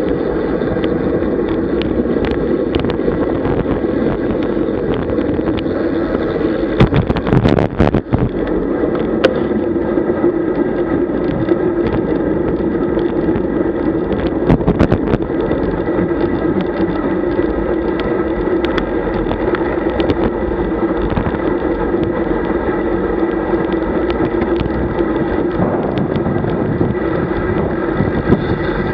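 Wind rushing over the microphone of a bike-mounted camera at riding speed, with a steady drone of tyre and road noise. Clusters of knocks and rattles come about seven to eight seconds in and again around fifteen seconds.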